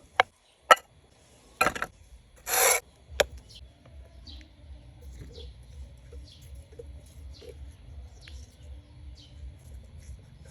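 Handling noises: a few sharp clicks and a short rasping scrape about two and a half seconds in, then faint scattered chirps over a low rumble.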